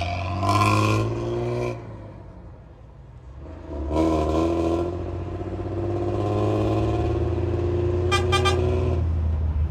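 Diesel coach bus engine running through a loud exhaust as the bus pulls away, dropping in level about two seconds in, then returning with its note climbing slowly. Three short, high toots sound near the end.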